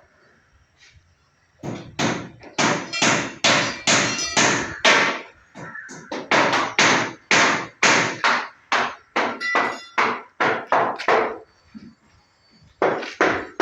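Hammer blows on shuttering formwork, a steady run of sharp strikes about two a second. They stop briefly near the end, then start again.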